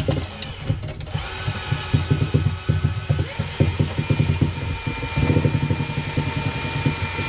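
Motorised drain auger running, its spinning cable rattling with a fast, uneven clatter over a steady motor whine while clearing a blocked drain.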